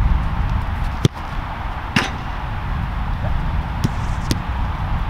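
Soccer ball being kicked and passed on an artificial-turf pitch: four sharp thuds of boot striking ball over a steady low rumble.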